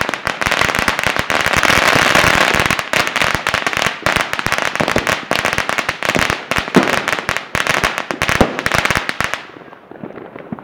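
Strings of firecrackers going off in dense, rapid pops and crackles, which stop abruptly about nine seconds in and leave only a few fainter pops.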